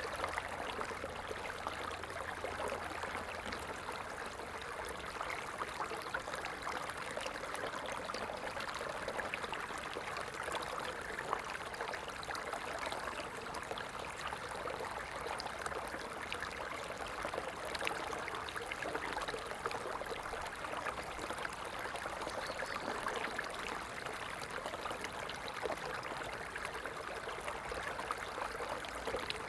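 Small stream flowing steadily, a continuous babble of running water.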